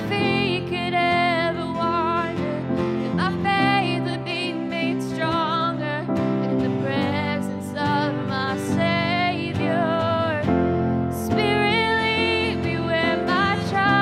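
Live worship band playing a slow contemporary worship song: a sung lead vocal over acoustic guitar and held band chords.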